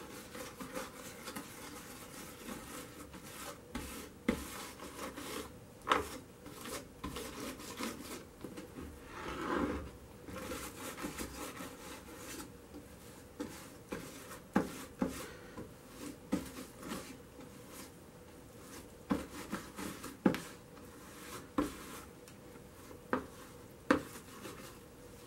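Stiff brush scrubbing dark leading cement into the lead cames of a stained glass panel, a scratchy rubbing with scattered sharp knocks that come more often in the second half. The scrubbing pushes the cement between the lead and the glass to make the panel waterproof.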